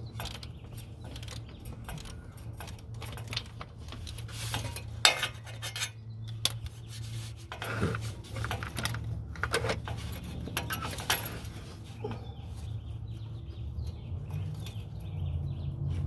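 Metal hand tools clinking and knocking against metal while a car's starter is being unbolted from underneath: irregular sharp clicks and taps, a few louder knocks in the middle, over a steady low hum.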